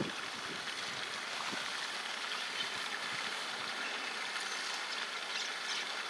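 Steady hiss of running water, like a small stream flowing nearby.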